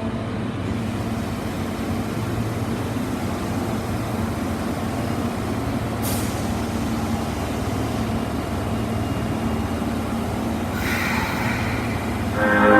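Steady running noise of an Osaka Metro Tanimachi Line 22 series train, with a short sharp click about halfway through and a brief hiss of compressed air about two seconds before the end. The door chime starts right at the end.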